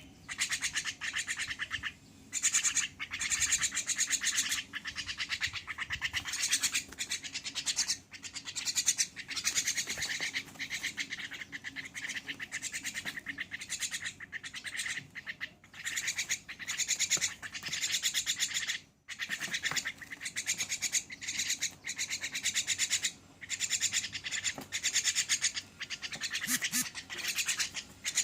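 Javan myna giving rapid, raspy calls in repeated bouts of a second or two with brief breaks, while it is being fed.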